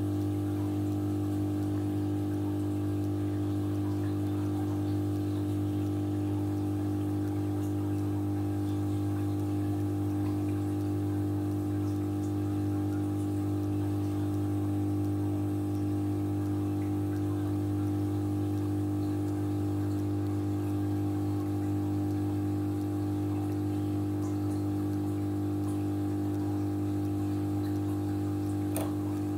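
Steady hum of an aquarium pump, with a faint wash of circulating water. A single short click comes near the end.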